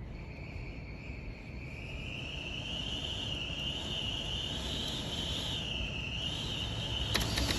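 Storm wind blowing hard: a high whistle that wavers and slowly rises in pitch over a low rumble, with a brief clatter of something rattling near the end.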